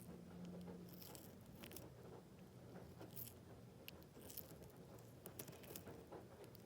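A tortoise biting and chewing its food: faint, irregular crisp crunches and tearing bites, a few seconds apart.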